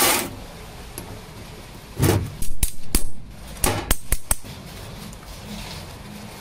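Steel parts knocking and clinking against each other and a steel worktable as they are handled: two dull knocks and a scatter of sharp metallic clicks between about two and four and a half seconds in, over a low steady hum.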